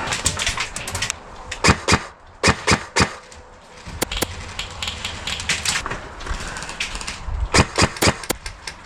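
Airsoft guns firing in a game: a quick run of clicks in the first second, then scattered sharp single shots and short bursts, with a cluster near the end.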